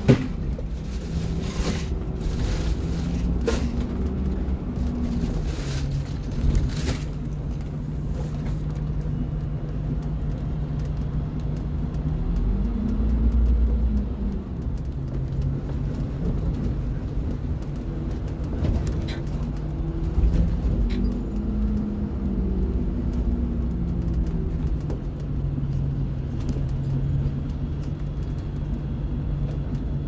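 School bus engine and road noise heard from inside the moving bus. The engine pitch rises and falls twice as the bus speeds up and eases off, and there is a sharp knock right at the start.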